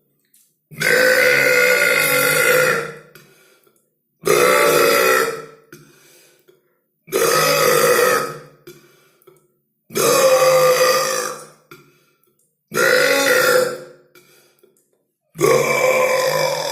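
A person burping six times, long drawn-out belches about three seconds apart; the last one is still going at the end.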